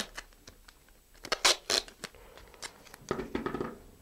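Masking tape being pulled off its roll and torn, with three short rips about a second and a half apart.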